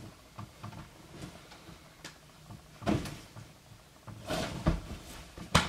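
Clothes being grabbed and shuffled about on a bed, with rustling and scattered light knocks, and a sharp thump near the end.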